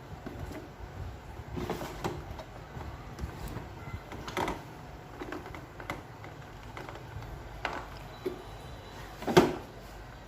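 Plastic parts of an evaporative air-cooler fan being handled and fitted back together: a series of scattered clicks and knocks, the loudest about nine seconds in.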